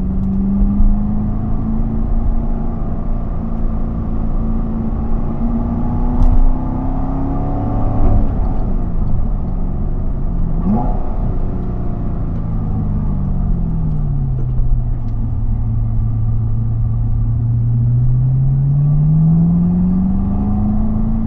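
Corvette C7 Z51's 6.2-litre V8 pulling up through the revs, then falling off about 8 seconds in, with a short quick rev rise near 11 seconds. It settles at a low steady engine speed, then climbs again near the end, over steady road noise.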